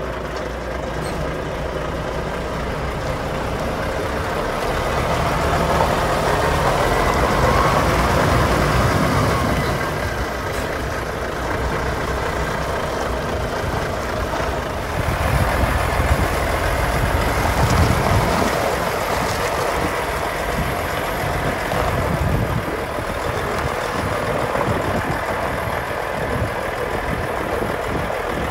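Diesel engine of a Volvo tractor unit running while the tractor-trailer manoeuvres through a turn, swelling louder twice, about a third of the way in and again around the middle.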